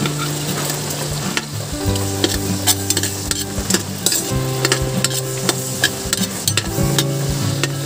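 Chopped onions sizzling in melted margarine in a metal pot, with a metal spatula clicking and scraping against the pot as they are stirred. Sustained musical tones play underneath, changing every second or two.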